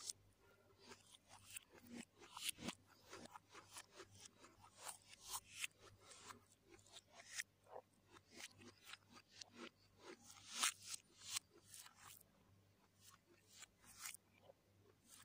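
Close-up eating sounds: fingers working through fried rice on a plate, and chewing and lip smacking, a faint irregular run of soft clicks and crackles.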